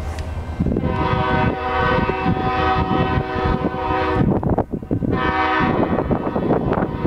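Locomotive air horn sounding one long blast of about three and a half seconds, then a short blast, over the loud rumble of a passing train.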